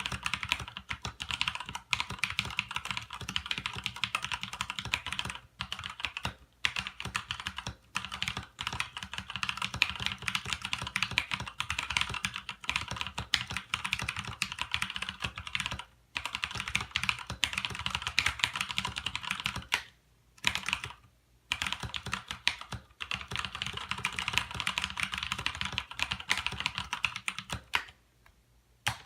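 Mechanical keyboard with Cherry-style brown tactile switches and thick PBT keycaps being typed on quickly and steadily: dense rapid key clacks, with a few brief pauses.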